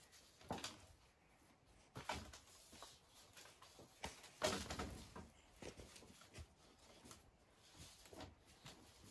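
Faint, scattered knocks and scrapes of a bamboo pole being handled against a timber post frame, the loudest about four and a half seconds in.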